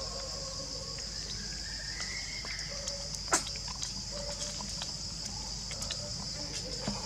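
Outdoor ambience dominated by a steady, high-pitched insect drone, with a few faint held calls lower down. Scattered sharp clicks sound over it, the loudest about halfway through.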